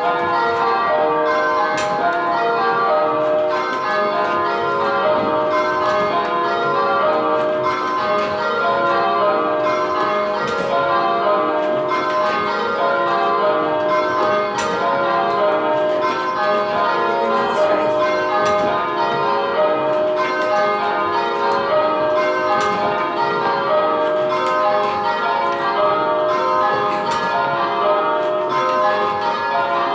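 A ring of church bells rung full-circle by hand in change ringing, each bell struck in turn in a steady, even sequence. The ringing is a kaleidoscope (dynamic pairs) exercise, in which pairs of bells hold their places for several blows and then swap at handstroke.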